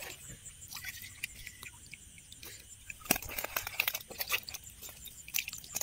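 Scattered small splashes and clicks as hands and a hand net work through shallow, weedy water, over a steady, evenly pulsing chirp of night insects.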